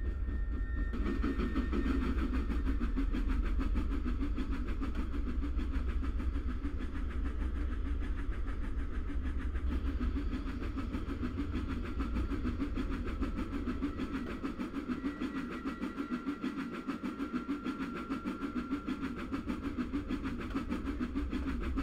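Miniature steam locomotive chuffing steadily as it hauls a train of coaches, with a low rumble of wheels on the rails. The chuffs come more distinctly in the second half.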